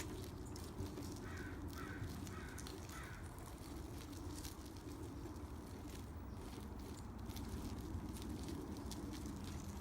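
A bird calling four short times in quick succession about a second in, over a steady low outdoor background rumble.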